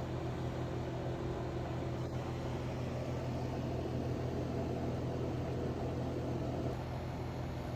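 Steady low electrical hum with a fan-like whir. A higher tone in it drops out near the end.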